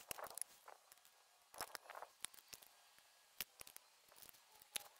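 Faint, irregular clicks and taps of a wrench working on a strut assembly held in a spring compressor.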